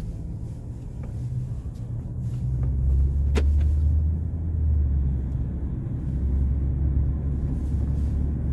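Low road rumble inside an Audi SQ5's cabin while driving, with a few faint ticks and one sharper tick about three and a half seconds in: the kind of trim noise being chased around the panoramic sunroof.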